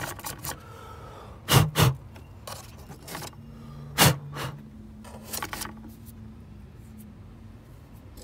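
Sharp knocks and clicks of parts being handled in a car's engine bay: two close together about one and a half seconds in, the loudest about four seconds in, then a few lighter taps, over a low steady hum.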